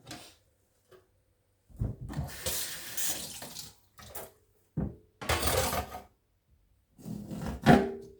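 Kitchen tap running in two short bursts of a second or two, as if something is being rinsed under it. Short knocks come between the bursts, and near the end there is a louder clatter of something hard with a brief ring, like a dish or pot being handled at the sink.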